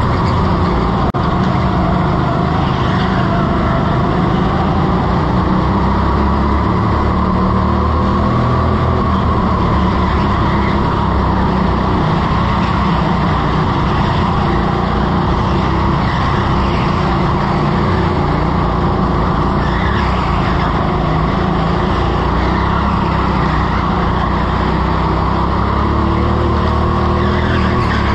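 Onboard sound of a rental go-kart's engine at racing pace, its revs rising and falling through the corners.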